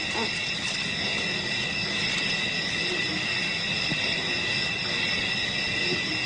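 Steady night chorus of insects such as crickets: a continuous shrill trilling at several high pitches at once, unbroken throughout.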